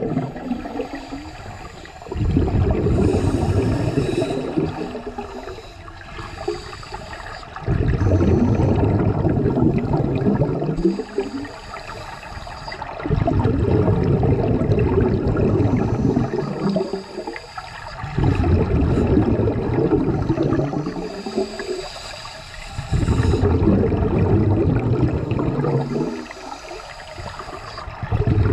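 Scuba divers' exhaled air bubbling out of their regulators, heard under water: a low rumbling gurgle in bursts of about three seconds, coming roughly every five seconds with each breath, and a faint higher hiss in some of the gaps.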